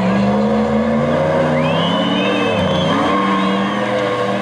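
A lifted off-road SUV's engine labouring under load as it climbs a dirt slope, its revs dipping and rising again twice. A thin high whistling runs over it through the middle.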